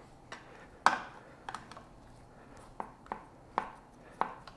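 Metal hand-tool clicks and taps as a socket wrench snugs down the bolts of a dirt bike's clutch cover in a star pattern, before final torquing. About seven short, sharp clicks come at uneven intervals, the loudest about a second in.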